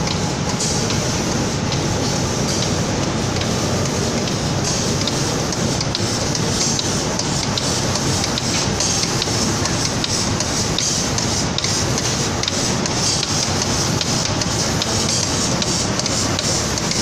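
Automatic paint spraying machine running: a steady hiss of air-driven spraying over a low mechanical hum, the hiss growing stronger about five seconds in.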